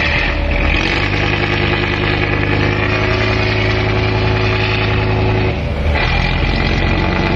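A boat engine running steadily during a berthing manoeuvre, with a short break and a slight change in its note about six seconds in.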